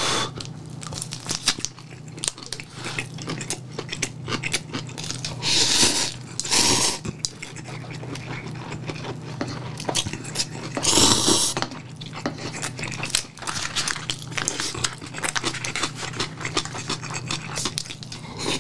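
Close-up eating sounds of Shin Ramyun cup noodles: wet chewing clicks throughout, and three loud slurps, two close together about six to seven seconds in and one about eleven seconds in. A low steady hum runs underneath.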